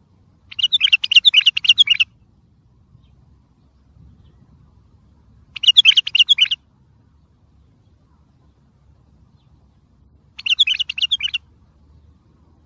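Wild bulbul singing three short phrases of rapid notes, about four to five seconds apart, the first the longest.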